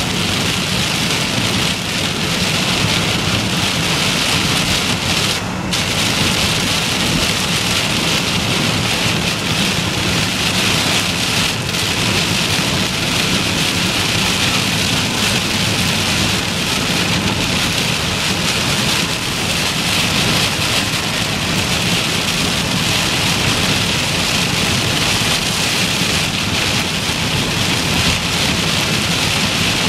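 Heavy rain pelting a car's roof and windshield, heard from inside the moving car as a dense, steady hiss, with a low steady road rumble underneath.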